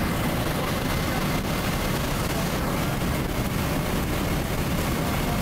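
Steady, even roar of jet aircraft in flight, heard from an aircraft flying in close formation.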